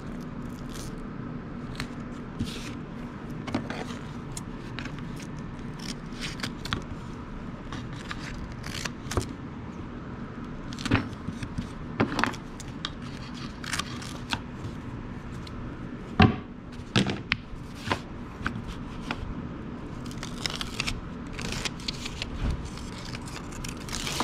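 Adhesive tape being pulled off the roll, pressed onto a wooden board and trimmed with a utility knife, heard as irregular scrapes, tearing and small clicks over a steady low hum.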